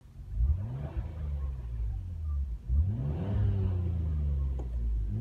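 Nissan Skyline GT-R R34 V-Spec II's RB26DETT twin-turbo straight-six revved with the car standing still. It gives two throttle blips, about half a second in and just under three seconds in, each rising sharply in pitch and then sliding back down toward idle.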